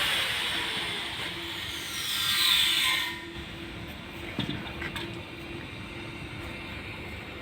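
Argon (TIG) welding arc hissing steadily, then cutting off abruptly about three seconds in. A quieter steady hum with a couple of clicks follows.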